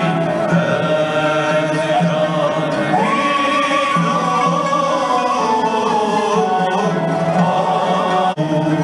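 Live Mevlevi sema music: singing in long, held lines that slide between notes over a low pulsing accompaniment. The sound briefly drops out near the end.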